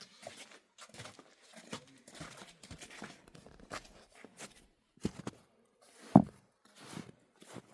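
Footsteps crunching in snow, irregular and soft, with one much louder thump about six seconds in.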